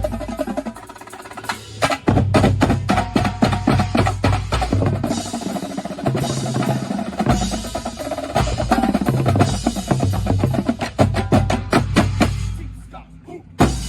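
Drum corps drumline of snare drums and pitched bass drums playing a busy, loud passage with drum rolls. It breaks off briefly about a second in and ends with a final hit near the end.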